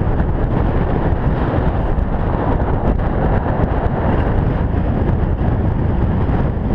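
Alpine coaster sled rolling fast down its steel rail track: a steady rumble of the wheels on the rails mixed with wind buffeting the camera's microphone.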